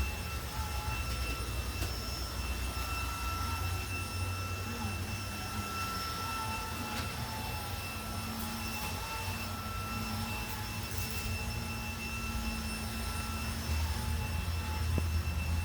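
Household vacuum cleaner running steadily: a constant motor whine over a low rumble, some of its tones wavering slightly in pitch.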